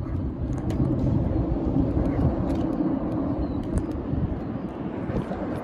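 Steady low rumble of distant motor traffic, swelling a little in the middle.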